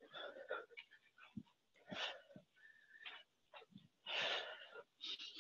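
A woman breathing hard in and out in irregular puffs during side skaters, with a few soft low thuds between breaths.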